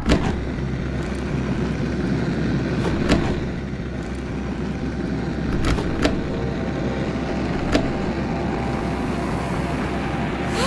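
A steady low mechanical rumble, like a motor or engine running, broken by a few sharp clicks. No canary song stands out.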